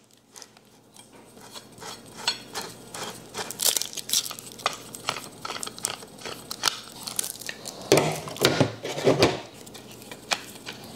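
Metal caster being screwed by hand into the bottom of a chrome steel shelving pole: a run of small metallic clicks and scrapes, with a few louder knocks about eight seconds in.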